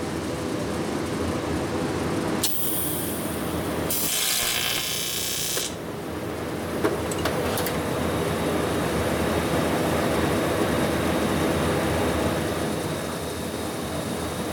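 Steady hum of running TIG welding equipment. Two short bursts of hiss come a few seconds in, the second louder and fuller. A couple of sharp clicks follow about seven seconds in, as the welder's settings are adjusted.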